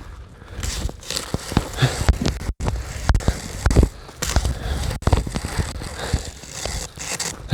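Irregular crunching and crackling of ice, with scattered clicks and knocks, as an ice-coated electric fence wire is handled and pulled.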